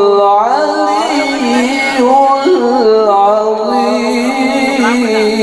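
A man chanting Quran recitation in the ornamented, melodic tilawah style, drawing out long notes with wavering, gliding pitch. It is the drawn-out close of the recitation after 'ṣadaqallāh'.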